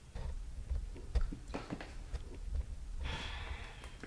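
Quiet small-room tone with a low hum, a few faint clicks, and a soft breath about three seconds in.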